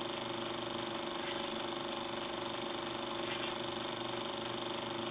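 Film projector running sound effect: a steady mechanical whir with a constant hum, and a faint soft swell about every two seconds.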